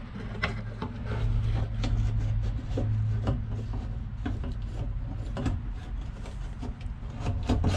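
Fuel pump assembly being twisted and worked out of a car's fuel tank opening by hand: scattered light knocks, clicks and scraping of plastic and metal, over a low steady hum.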